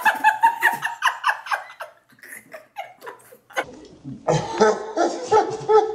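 Two people laughing and squealing, with a quieter patch in the middle, then breaking into hard laughter again for the last couple of seconds.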